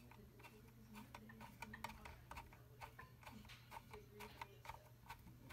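Faint, irregular small clicks of a screwdriver turning in the screws of the X-shaped retention bracket on the back of a Radeon HD 5770 graphics card, a few clicks a second.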